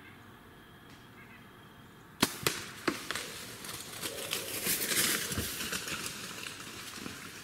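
A Gearhead T24 compound bow is shot: one sharp crack of the string and arrow about two seconds in, then a couple of quick knocks and a hit deer crashing off through dry leaves and brush.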